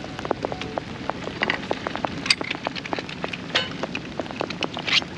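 Pouring rain, with a steady hiss and many irregular sharp drop taps on nearby surfaces.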